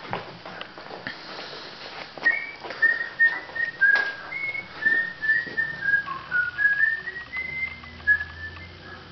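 A person whistling a tune: a run of short, clear notes at changing pitches, about three a second, starting about two seconds in. It is preceded by a few clicks and knocks.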